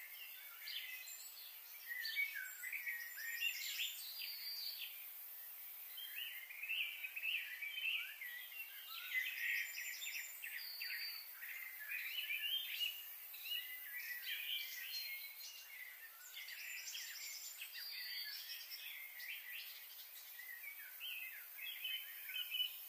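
Many small birds chirping and calling at once, short rapid chirps and trills overlapping with no pause, over a steady high hiss.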